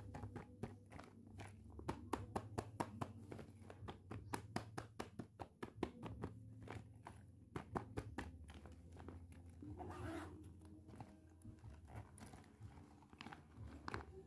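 Clear plastic zippered pouch crinkling and crackling as hands squeeze and turn it, with the toys inside shifting. A quick run of sharp crackles fills the first several seconds, then the handling sounds thin out, over a faint low hum.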